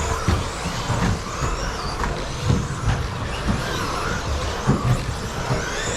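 Several 1/10-scale electric stadium trucks with 13.5-turn brushless motors racing, their motor whines rising and falling in pitch as they speed up and slow down, with occasional thuds.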